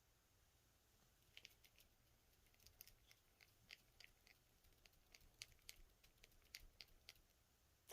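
Near silence: room tone with a scattering of faint small clicks.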